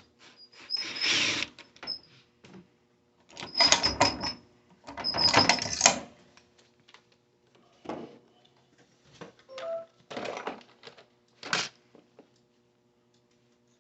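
Intermittent metallic clicks, clinks and rattles in short bursts, the loudest about four and five and a half seconds in: a drill and its bits being handled at the safe, most likely while the bit is changed.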